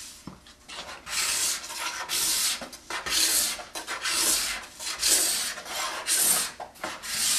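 Steel card scraper taking shavings off a madrone burl slab, in a run of short scraping strokes about one a second that start about a second in.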